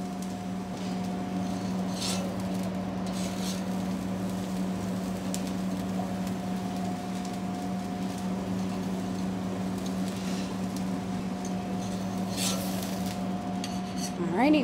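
Steady hum of a commercial kitchen's hood fan and gas char-grill, with broccolini sizzling on the grill grates. A few light clinks of metal tongs and tray come through, about two seconds in and again near the end.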